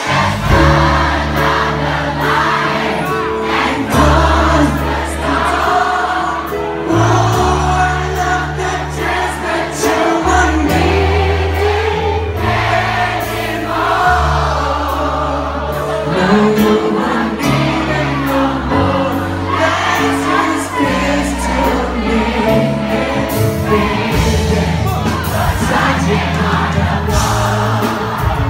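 Live pop performance: a male singer on a microphone over loud amplified music with a heavy bass line, with the audience singing along.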